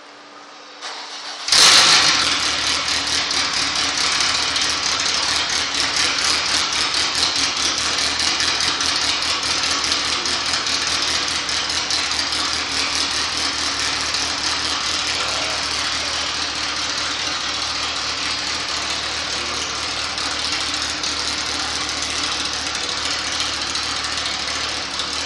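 Honda CRX del Sol four-cylinder engine cranked and catching about a second and a half in, then idling steadily and loudly with a harsh, raspy exhaust; the exhaust has been patched with body filler and aluminium foil.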